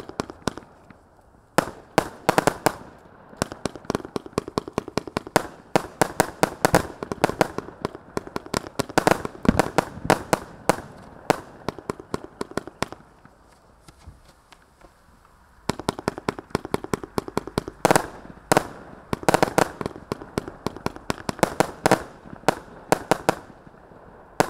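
A 131-shot mixed-tube consumer fireworks cake firing: rapid volleys of shots and bursts, many coming close together. The shots stop for about two seconds around the middle, then start again.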